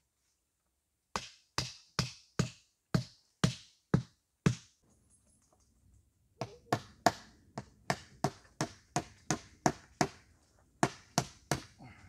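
Hammering on wood with a hand tool: about eight sharp blows at roughly two a second, a short pause, then a quicker run of about fourteen blows.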